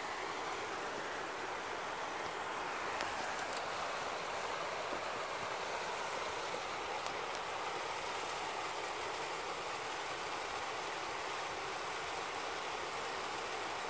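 Small stream spilling over a rocky cascade into a pool: a steady rush of running water.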